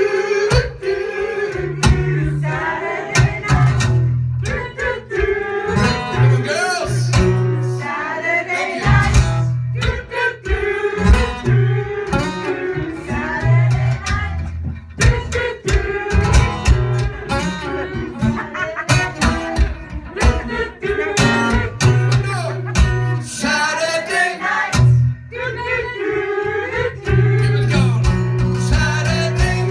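A man singing while playing an acoustic guitar in a solo live performance, the guitar strummed and picked under the vocal line.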